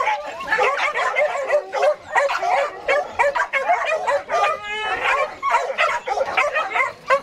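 Several young dogs yipping, barking and whining over one another, excited at another dog close by; one whine rises in pitch about halfway through.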